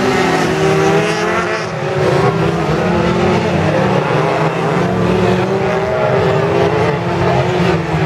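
Autocross race car engines running hard at high revs on a dirt track, their pitch rising and falling as they accelerate and lift through the corners.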